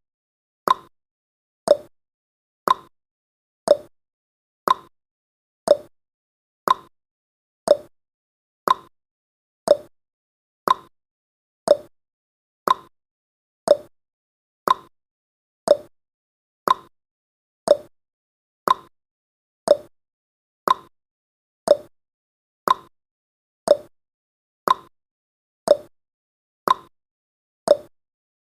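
Countdown timer's ticking sound effect: one short, sharp tick each second, evenly spaced, with silence between ticks.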